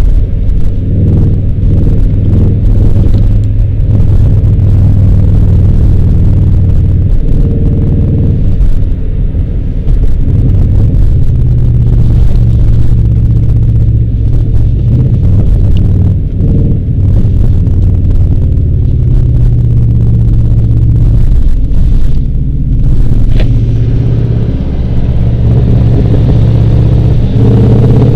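1998 Subaru Legacy's 2.2-litre flat-four engine through unequal-length headers and a straight-pipe exhaust, heard loud from inside the cabin. It cruises, then slows with a steady low exhaust rumble, and picks up again near the end.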